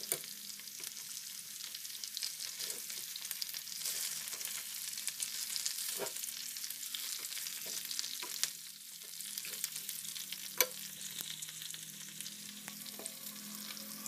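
Chicken drumsticks frying in hot oil in a nonstick pan, sizzling steadily, with scattered clicks and scrapes of a metal spatula turning the pieces.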